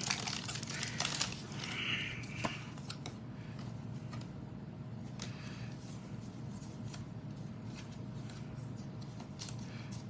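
Foil booster pack of trading cards crinkling and rustling in the hands for the first couple of seconds, then quieter, sparse clicks of cards being handled.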